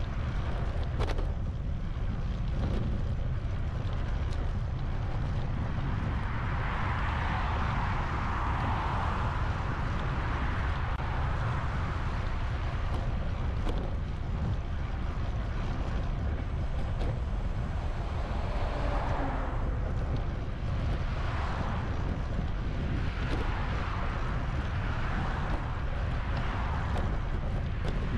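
Wind rumbling steadily on the microphone, with a rushing noise swelling up twice, once around the middle and again for several seconds in the second half.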